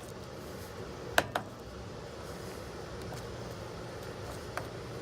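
Flathead screwdriver clicking against a rusty one-way security-bar screw as it is worked in the newly cut slot: two sharp metal clicks about a second in and another near the end, over a steady low hum.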